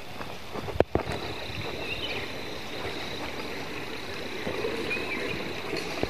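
Footsteps on a dirt path, then a sharp knock about a second in. After it a small stream runs steadily, with a thin, steady high tone over the water noise.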